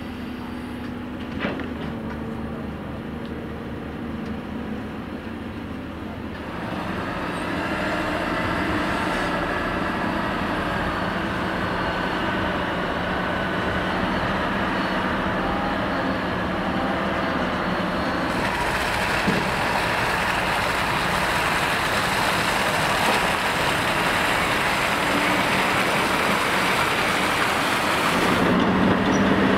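Heavy diesel engines of earthmoving machines and tipper trucks running steadily, louder from about seven seconds in. There is a single knock about a second and a half in.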